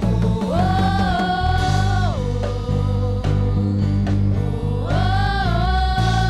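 Live church praise-and-worship music: a slow melody of long held notes that glide between pitches over a steady bass.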